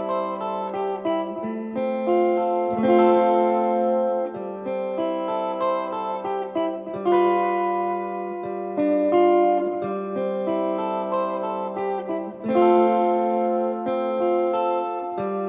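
Flight Vanguard solid-body tenor electric ukulele played through a guitar amp: sustained chords and melody notes that ring and overlap, changing every second or two, with louder attacks about three, seven and twelve and a half seconds in.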